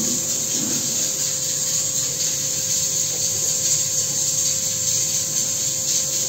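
A steady electric hum and hiss with a constant whine, from a running electric appliance or motor.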